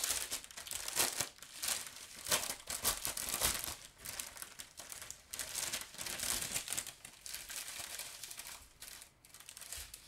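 Plastic baggies and packets of diamond painting drills crinkling as they are handled, in irregular bursts that ease off briefly near the end.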